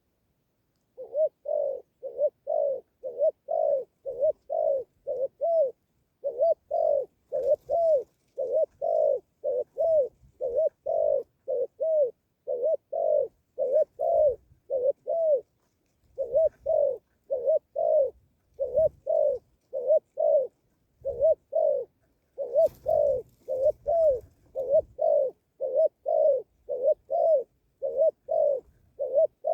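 A bird giving a long run of short, cooing hoots, about two a second, starting about a second in and pausing briefly now and then.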